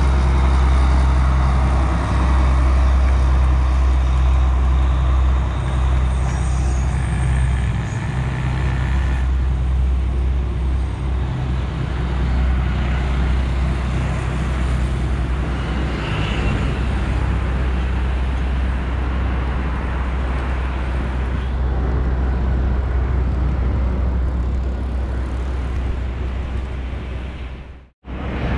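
Diesel train running as it pulls out and moves away, a steady loud low rumble whose engine hum fades after about nine seconds, leaving a noisy rumbling background. The sound drops out abruptly near the end.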